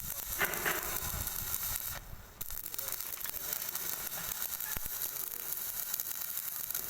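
LPG gas welding torch flame hissing steadily, with a brief drop-out about two seconds in.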